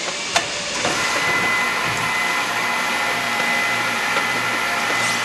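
A machine running steadily, a whir with an even high-pitched whine that starts about a second in.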